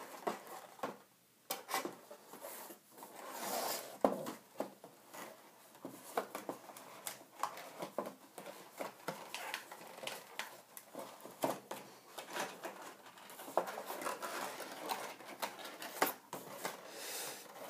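Packaging and small craft tools being handled and unpacked: rustling with many small clicks and knocks throughout.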